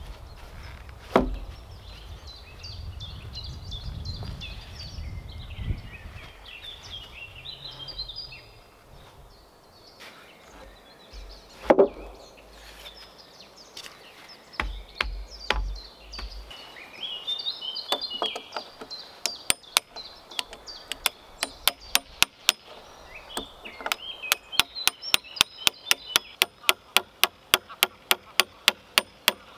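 Hammer blows on a nail being driven into a peeled log floor beam: sharp, regular strikes that start sparsely and settle into a steady beat of about two to three a second over the last several seconds. Earlier come two single heavy wooden knocks as the log beam is set on the stump posts. Birds sing throughout.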